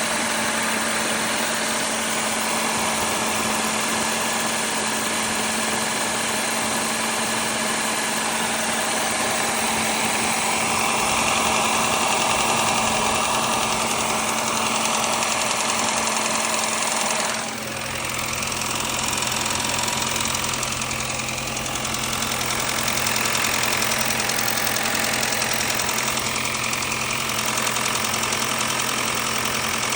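Audi EA888 turbocharged four-cylinder engine (code DKNA) running steadily with a strange noise that the owner cannot identify, under a steady hum and hiss. A little past halfway the sound changes: the hiss drops away and a lower steady hum comes in.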